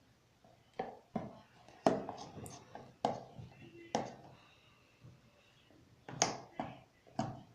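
Thickening slime being stirred with a spoon: about eight irregular sharp clicks and knocks of the spoon working the sticky mass in its container.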